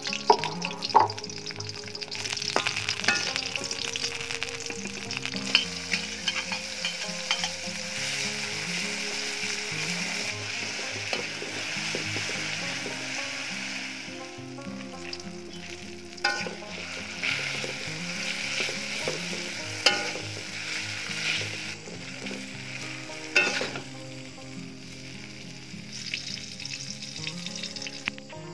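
Eggplant slices and tomato-chili sauce sizzling as they are stir-fried in an iron wok, with a metal spatula now and then scraping and clanking against the pan. The sizzle eases off about halfway through.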